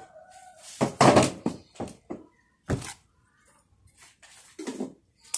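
A short squeak, then a series of thuds and knocks from things being handled and set down on a kitchen table, the loudest about a second in, with a sharp click at the end.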